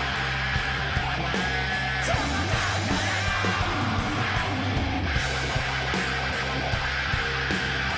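Live rock band playing a loud, heavy instrumental stretch of a song, with electric guitar, bass and drums.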